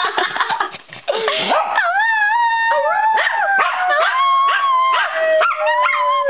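A dog howling in long, wavering, overlapping notes, with a short break about a second in; one note slides slowly lower through the second half.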